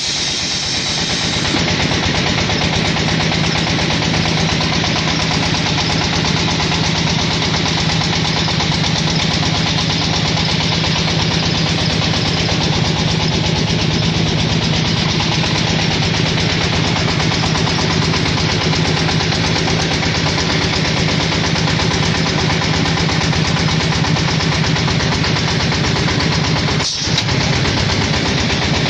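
Clay brick extrusion machine running steadily under power, a continuous engine and machinery drone with a strong low hum, broken by a brief dip near the end.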